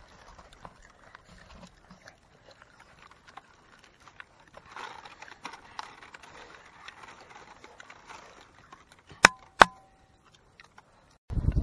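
Faint crackling and rustling of fingers picking apart grilled fish over dry palm leaves, with small scattered clicks. Near the end come two sharp clicks in quick succession with a brief ring, a moment of near silence, and then a much louder sound cuts in.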